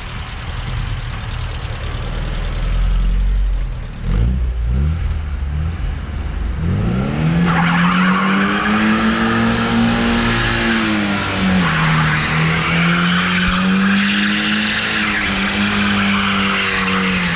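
Rear-wheel-drive Ford Sierra 2.0 DOHC four-cylinder drifting on damp asphalt. The engine runs low at first, then revs rise sharply about six or seven seconds in. From then on the engine is held high and the tyres squeal and skid continuously, with a brief dip in revs midway.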